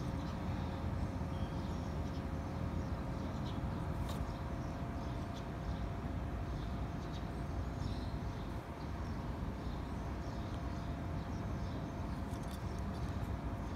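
Steady low background rumble with a faint constant hum and a few scattered faint high ticks; no clear kitten calls stand out.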